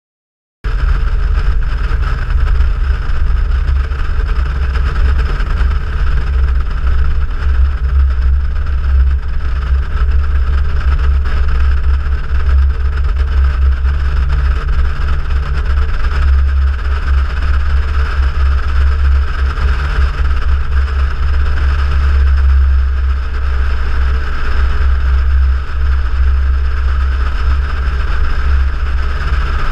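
Cessna 172's piston engine and propeller running steadily, a loud low drone that cuts in abruptly under a second in.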